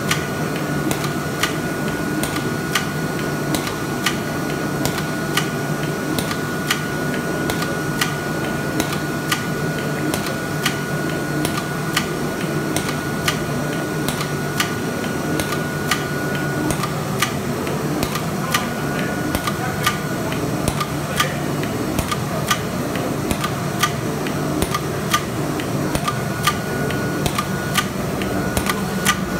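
Carton folder-gluer line with a tape applicator running: a steady mechanical hum with sharp clicks at a regular pace of about two a second as the machinery cycles. A thin steady high whine over it drops out about 17 seconds in and comes back near the end.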